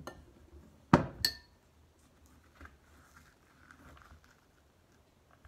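A spoon knocked twice in quick succession against the rim of a ceramic bowl about a second in, the second knock ringing briefly, shaking off squash seeds. Then quiet scraping of the spoon inside a halved winter squash, scooping out seeds and pulp.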